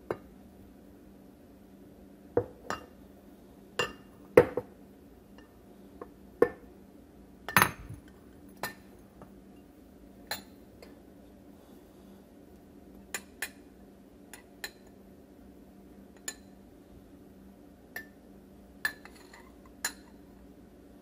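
Glassware being handled on a granite countertop: a glass jar and glass bowls knocking and clinking as they are moved and set down, with a metal spoon among them. About twenty separate sharp clinks, the loudest in the first eight seconds and lighter taps after that.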